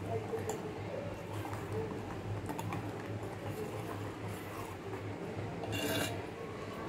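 Metal ladle stirring milky payasam in a metal pot on a gas stove while the sugar dissolves: soft scraping and sloshing over a low steady hum, with a light knock at the start and a short scrape about six seconds in.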